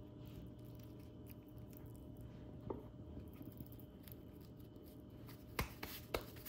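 Hands folding and handling samosa pastry on a kitchen counter: faint rustles, a soft crackle, then a few sharp taps near the end, over a steady low hum.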